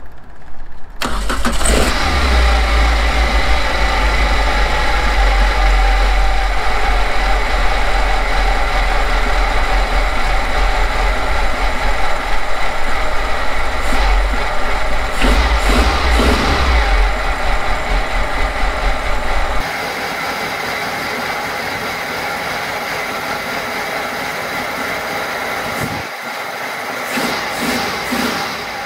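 A Suzuki Samurai's freshly swapped-in 1.6 petrol engine with a Weber carburettor is started about a second in and settles into a steady idle, with a couple of brief revs midway. Its first run after the swap; in the last part it is heard farther off, without the deep rumble.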